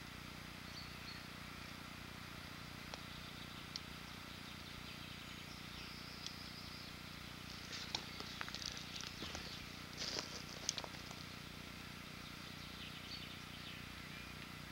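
Faint steady outdoor background hiss, with a cluster of light clicks and rustles from about eight to eleven seconds in as a picker rod and its reel are handled and cast.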